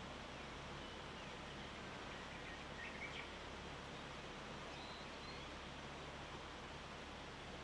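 Steady hushed outdoor morning ambience with a low steady hum underneath, and a few faint, short bird chirps about three seconds in and again around five seconds.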